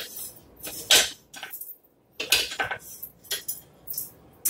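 Kitchen utensils and dishes being handled on a counter: a series of short clinks and knocks.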